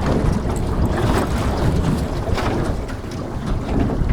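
Strong wind buffeting the microphone, with choppy waves slapping irregularly against the hull of a small boat.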